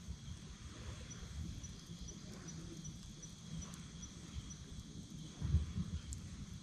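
Crickets and other night insects trilling steadily, with a faint run of short high chirps about two a second in the first half. A couple of soft low thumps come about five and a half seconds in, and a few faint sharp clicks.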